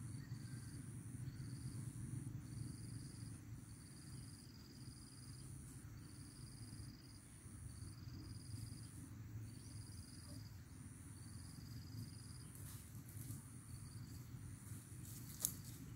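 Faint insects calling in the grass and bamboo: a high buzzing call repeated about once a second, with a second, lower buzzing call in longer stretches, over a low steady background hum. Near the end come a few crisp footsteps through grass and dry leaves.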